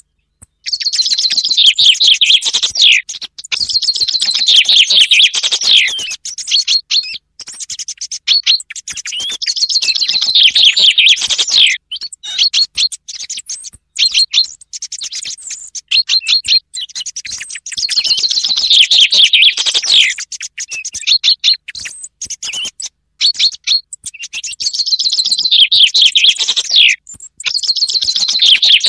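Common chaffinch song repeated every few seconds, each phrase a descending run of rapid notes lasting two to three seconds and ending in a flourish, with shorter, fainter song thrush notes mixed in between. It is a hunting lure recording that blends the two species' calls.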